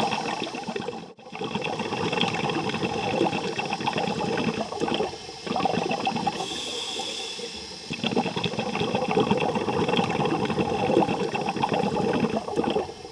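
Bubbling, rushing water noise, dense and crackly, briefly cutting out about a second in.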